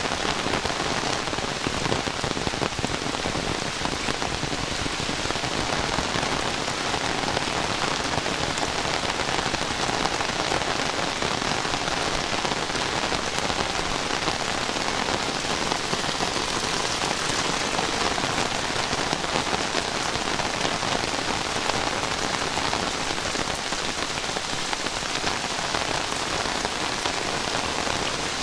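Heavy rain falling steadily, a dense even hiss of drops hitting surfaces with no let-up.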